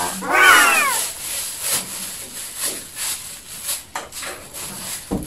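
Plastic packaging bag crinkling and rustling as an electric oven's power cord is pulled out of its wrapping, in irregular crackles. Near the start, a short high-pitched vocal exclamation that rises and falls in pitch.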